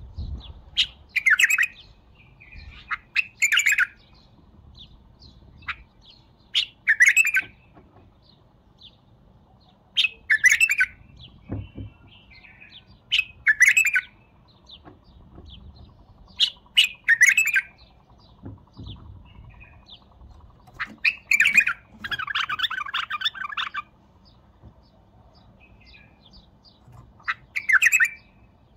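White-eared bulbul singing short, loud whistled phrases every few seconds. About two-thirds of the way through comes a longer run of rapid chattering notes.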